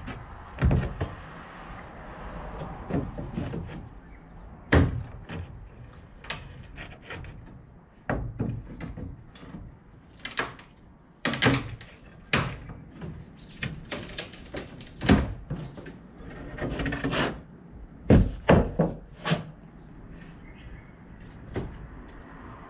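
Wooden boards and timbers knocking and banging as they are handled during manual demolition: irregular sharp knocks a second or more apart, the loudest in a quick cluster about three-quarters of the way through.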